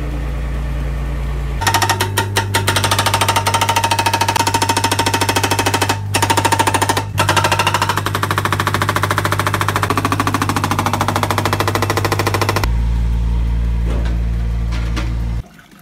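Mini excavator's diesel engine running steadily, then a hydraulic breaker on the excavator's arm hammering rapidly for about eleven seconds, with two brief pauses. The engine alone is heard again afterwards, and the sound cuts off near the end.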